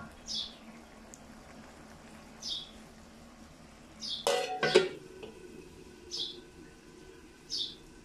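Wooden spatula giving a few short scrapes in a metal wok of frying bitter gourd and potato. About four seconds in come a few loud metallic clanks with a brief ring as a metal lid is set on the wok.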